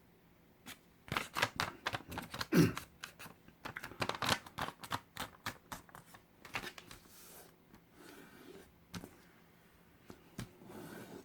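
A square sheet of origami paper being handled and folded: quick crisp rustles and crackles as it is flipped, folded into a triangle and the creases pressed, busiest in the first half and sparser toward the end. A brief low falling sound about two and a half seconds in is the loudest moment.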